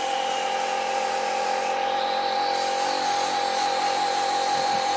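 A small electric motor running with a steady whine at an even pitch.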